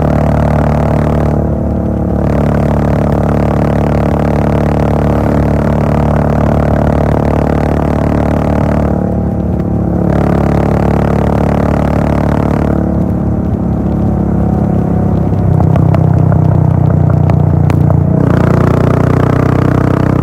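Royal Enfield Bullet 500's single-cylinder engine running through a Gold Star full-system exhaust while cruising at a steady speed. The throttle eases off briefly three times, about 2, 9 and 13 seconds in, and the exhaust is loudest from about 15 seconds on.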